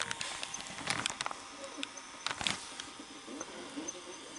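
Faint, muffled playback sound from a videotape's linear audio track playing on an S-VHS VCR, with scattered sharp clicks and ticks.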